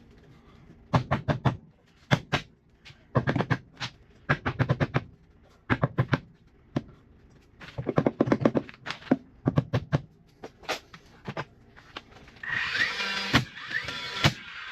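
Wood blocking being fastened into framing: several short bursts of rapid knocking, each a second or less, then background music near the end.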